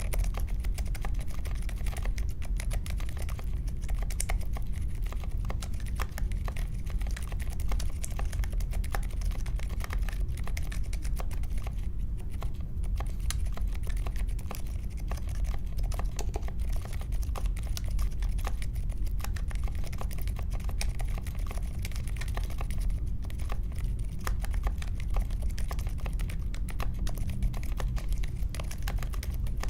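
Continuous fast typing on a mechanical keyboard with unlubed Akko CS Vintage White linear switches in an aluminium case with foam and tape mods and clipped stabilizers: a dense, unbroken stream of keystrokes.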